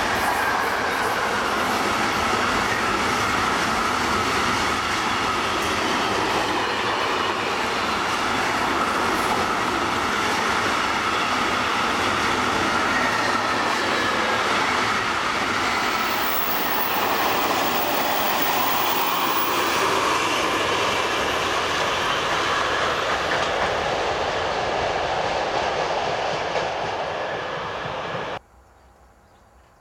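Container freight train's flat wagons rolling past, a loud steady rumble and clatter of steel wheels on the rails with a wavering tone running through it. It cuts off suddenly near the end.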